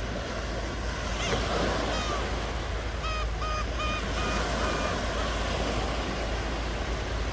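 Ocean surf washing steadily. A bird calls over it: single calls after about a second, then a quick series of five or so short repeated notes about three seconds in.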